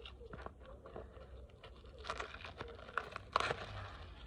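Faint rustling and light knocks from a boxed card deck and its packaging being handled, with two brief crinkling swishes about two and three and a half seconds in.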